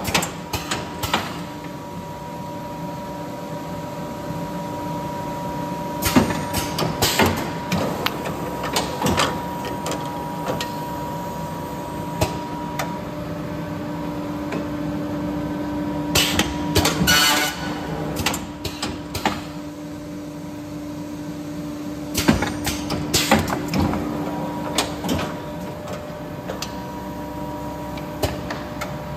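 Jud MR-720 single-clamp perfect binder running: a steady machine hum with a held tone, broken by clunks and clatters at intervals as its mechanism cycles.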